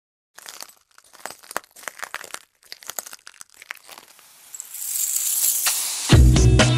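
Logo-intro sound effects: irregular clusters of crackling, crinkling clicks, then a whoosh that swells over about two seconds. Music with heavy bass and drums cuts in near the end.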